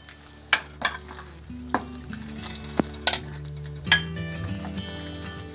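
Metal ladle scooping soup from a glass saucepan, with about six sharp clinks and knocks of metal against glass and the bowl as it is served. Soft background music with held notes plays underneath.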